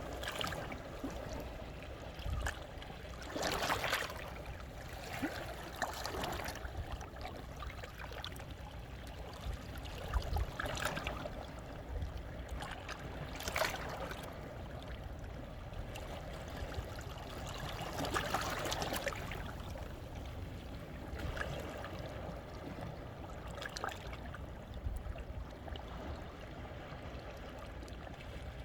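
Small sea waves washing in among the volcanic rocks of a rocky shore and trickling back out, with a louder splash every few seconds over a steady wash of water.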